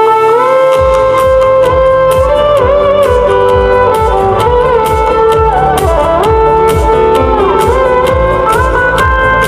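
Instrumental music: a sustained melody line that slides between notes, with a steady beat coming in about a second in.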